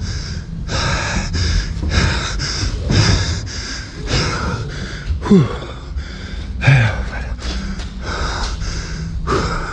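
A person panting hard and fast, out of breath from exertion. A few short voiced gasps fall in pitch, over a low rumble.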